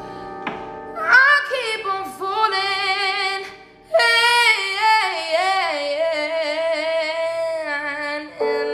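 A woman singing solo, starting about a second in: long held notes with vibrato, joined by sliding phrases.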